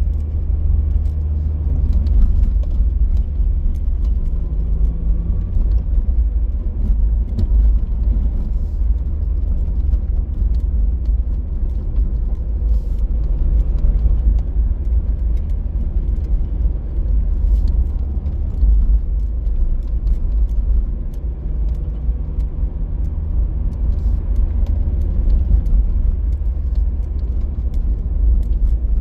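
Car on the move: a steady, deep rumble of road and engine noise, with a faint engine hum that wavers slightly in pitch.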